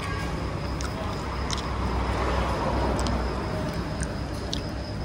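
Road vehicle noise: a steady low engine rumble that swells as a vehicle passes about two to three seconds in, with a few light clicks.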